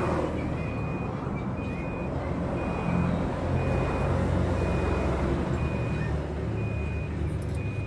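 A vehicle's reversing alarm beeping steadily, one high tone about once a second, over the low rumble of an engine running.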